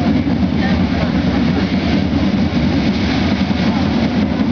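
A line of side drums playing continuous, dense drumming with no break. It is loud and steady throughout.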